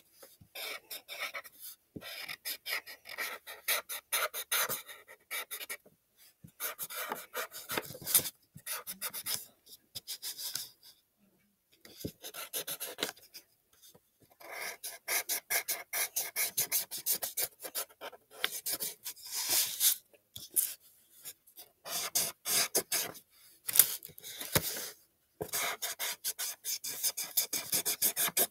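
Black felt-tip marker rubbing on paper as it fills in a drawing: rapid back-and-forth strokes in bursts, with short pauses between them.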